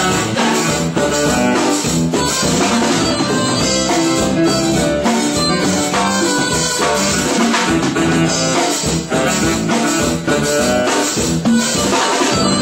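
A live band playing loud music: a drum kit with cymbals keeping the beat under guitar.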